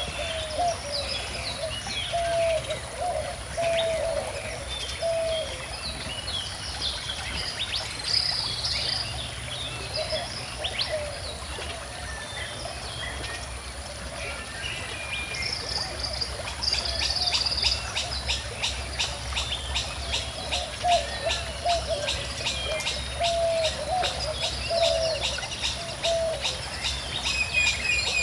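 Several birds calling and chirping, including a low call repeated in short phrases, over the steady low rush of a flowing stream. From about halfway in, a fast, even high ticking joins them.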